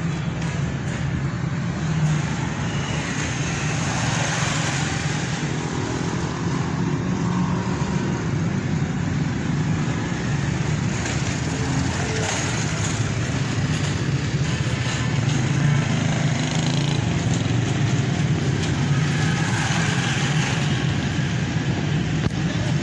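Motorcycle engine running steadily at low revs, a continuous low hum.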